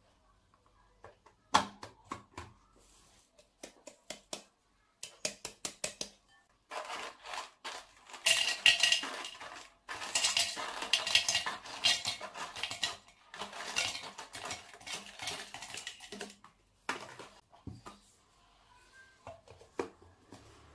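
Whole cashews clattering as a fork pushes them from a plastic tub into a plastic blender grinder cup. Sparse clicks at first, a dense run of rattling in the middle, then scattered knocks as the cup is handled and its blade assembly fitted.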